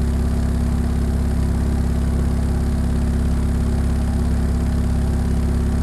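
Subwoofer with a homemade rewound voice coil playing a loud, steady bass drone, pushed hard from the car head unit to heat the coil toward 300 degrees in a temperature test.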